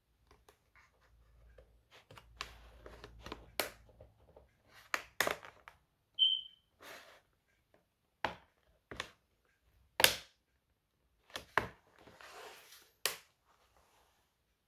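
Hands working on a laptop's hardware: a run of sharp clicks and taps of plastic and metal parts, with a short scrape and rustle, and a brief squeak about six seconds in.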